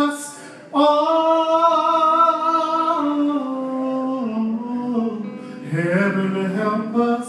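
Live singing: a male voice holds long notes that step down in pitch, then slides up into a new held note about six seconds in.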